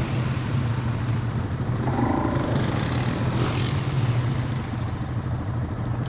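ATV engine running at a steady speed, a continuous low hum with no clear revving.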